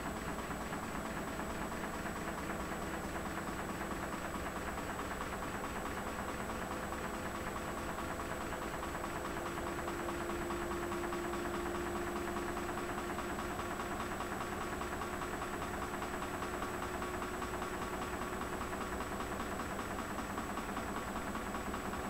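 Front-loading washing machine running with its drum turning: a steady motor hum and whine with a low rumble, one tone swelling slightly about halfway through.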